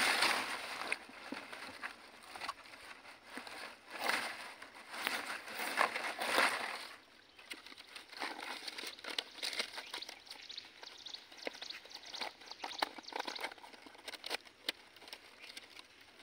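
Stiff palmyra palm leaves rustling and crackling as they are folded and bound into a parcel by hand, with heavier rustles for the first seven seconds or so, then lighter crinkles and clicks.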